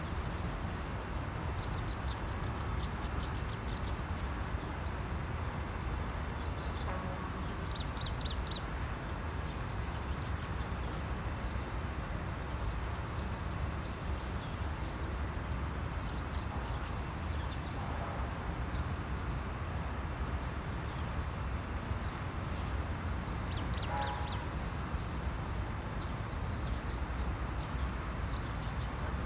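Steady low rumble of outdoor background noise, with short clusters of high bird chirps several times.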